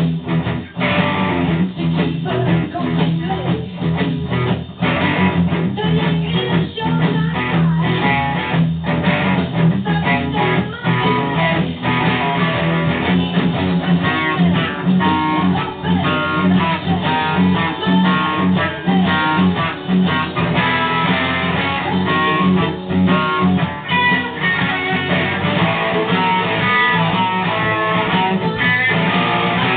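Handmade Firebird-style solid-body electric guitar, with a cherry body and a dual-coil Alnico 5 pickup, played through a Jet City amplifier. It plays without a break: a busy run of picked notes with low notes ringing underneath.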